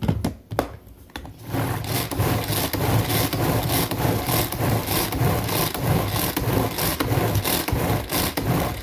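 Tupperware Power Chef pull-cord mixer being pulled over and over, a quick, steady rhythm of whirring strokes as its blades whisk eggs, water and oil. It starts about a second and a half in, after a couple of light knocks.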